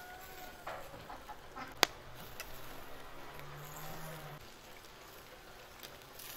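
Quiet outdoor ambience with an insect buzzing as a low hum for about a second, and one sharp click about two seconds in.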